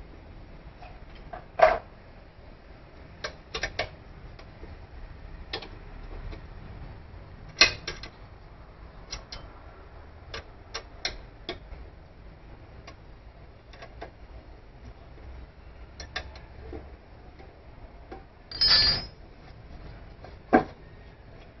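Scattered metal clicks, taps and clinks of a hex key and bolts being worked on an electric scooter's motor gearbox during disassembly, with a longer, louder burst near the end.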